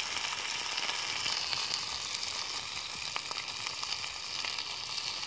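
Steak frying in oil in a small camping pan over a wood-burning Bushbox stove: a steady sizzle with a few small pops.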